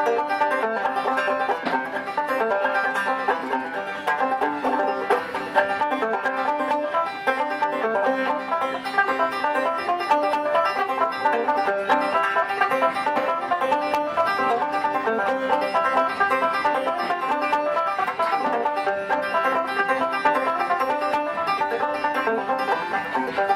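Open-back five-string banjo played solo: an instrumental tune in a steady stream of quick plucked notes.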